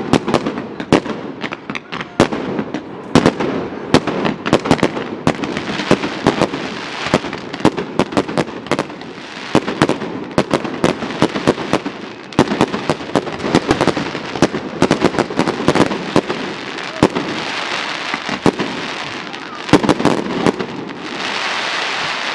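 Fireworks display: an irregular series of sharp bangs from bursting aerial shells, several a second at times, over a continuous crackling hiss that thickens near the end.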